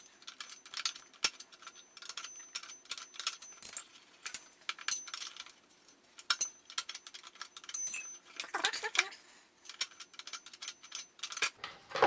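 Plastic timing belt cover of a Toyota 2JZ-GTE engine being worked out past the power steering pulley: a run of irregular small clicks, knocks and rattles, with a longer scrape about two thirds of the way in, as the cover shifts against the pulley and the engine.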